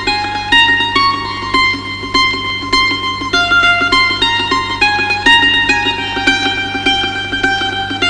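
Background music: a melody of quick, separate plucked-string notes over a steady low drone.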